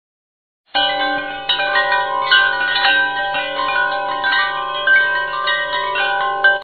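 Chimes ringing, many bell-like notes struck again and again and overlapping, starting about a second in and cutting off suddenly at the end.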